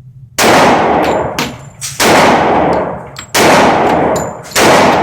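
Glock 21 pistol firing handloaded .45 ACP rounds: four shots about a second and a half apart, each trailing off over about a second, with light metallic clinks between the shots.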